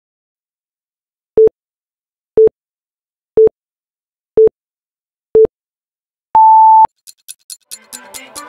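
Film-leader countdown beeps: five short, low beeps one second apart, then one longer, higher beep. About a second later a quick run of sharp ticks starts, and electronic music fades in under it near the end.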